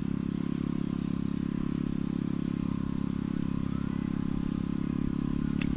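An engine running steadily at an even speed, a constant low hum.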